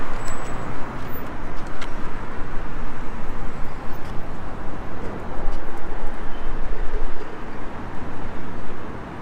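Steady road traffic noise: the continuous rumble of cars and engines going by, with a few faint clicks.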